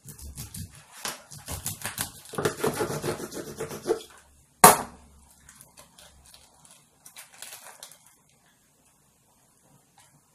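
A kitchen knife sawing through a block of tofu on a plastic cutting board, in a quick run of short scraping strokes. About four and a half seconds in comes one sharp knock, the loudest sound, followed by faint handling clicks.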